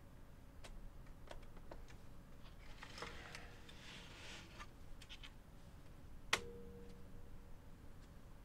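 Faint small clicks and light scraping of metal and plastic parts as the cassette carriage of a Sony EV-S9000E Hi8 video recorder is handled and seated onto the tape deck mechanism. About six seconds in comes one sharper metallic click that rings briefly.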